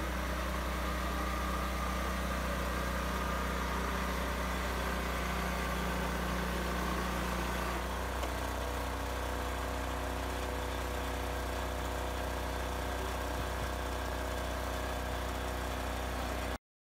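Mini combine harvester's twin-cylinder engine running steadily with a low drone. Its tone shifts slightly about halfway through, and the sound cuts off abruptly near the end.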